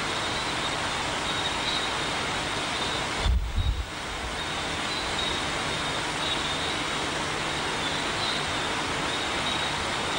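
Steady background hiss of an open microphone outdoors at night, with a faint high steady tone. About three seconds in comes a brief cluster of low thumps, and the hiss dips for a moment.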